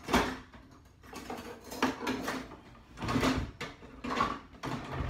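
Rummaging through a kitchen drawer: objects inside clattering and sliding in a string of irregular bursts.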